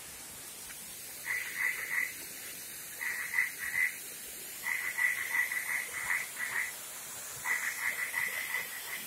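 An animal calling in four bouts of rapid repeated notes, about five a second, each bout lasting one to two seconds. Underneath is the steady hiss of the waterfall.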